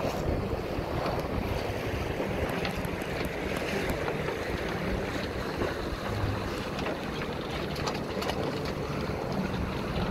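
Sea water washing along the hull of a sailing yacht under way, with wind buffeting the microphone in a steady rushing noise.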